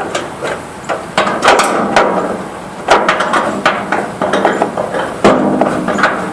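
Hand tools knocking and clanking on metal fittings: a string of sharp, irregularly spaced knocks while a bolt is worked on.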